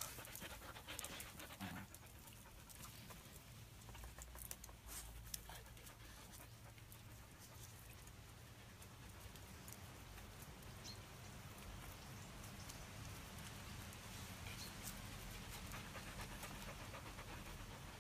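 A dog panting softly, with a few faint clicks in the first couple of seconds.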